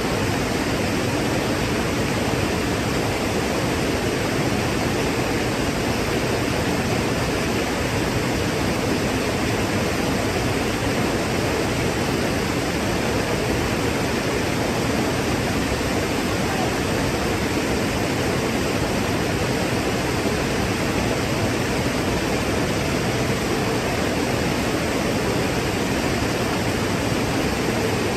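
Waterfall: falling water rushing in a steady, unbroken roar of even noise.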